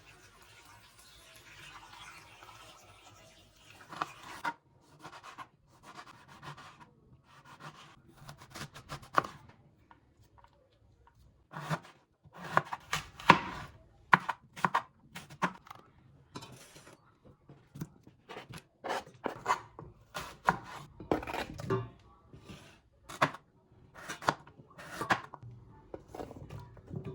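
Knife cutting fruit on a cutting board in a series of irregular strokes, with a pause about ten seconds in.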